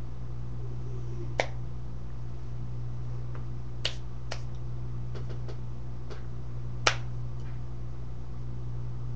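Five or so sharp, scattered clicks or snaps, the loudest about seven seconds in, over a steady low hum.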